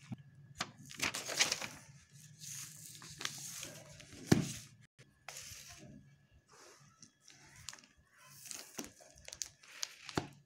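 Packaging being torn and crinkled by hand: a brown paper parcel and the clear plastic wrap around a book, in irregular rustling bursts, with one sharp crack about four seconds in.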